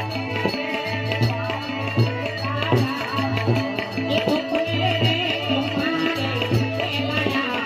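Live Gujarati folk music for a Ramamandal stage performance: hand drums keep a steady beat under a melody.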